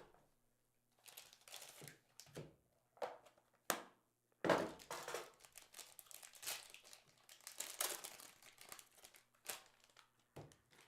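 Sports-card box packaging and pack wrappers being torn open and crinkled, in irregular bursts of plastic crackling, with a sharp click at the very start.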